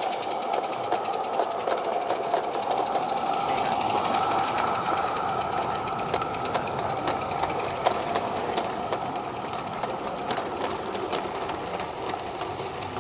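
A small live-steam garden-railway locomotive running with a train of vans: a quick, even mechanical beat with the wagons clattering on the track, fading a little near the end as it draws away.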